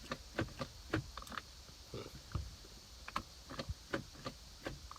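Irregular light clicks and taps, a dozen or so, from hands working a car's shift knob and plastic centre-console trim.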